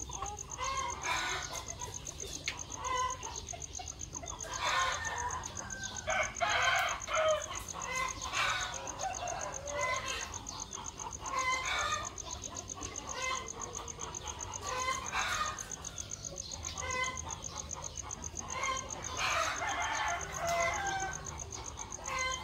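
A flock of chickens, hens and roosters, clucking and calling over and over as they peck at feed, with a rooster crowing now and then.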